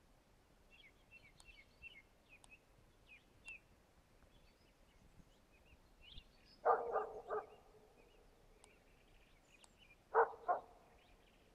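A young moose-hunting dog barking at a distance, about 150 m off: the bay bark of a dog holding a moose at stand, in two bouts, three barks about two-thirds of the way in and two more near the end. Small birds chirp faintly in the first few seconds.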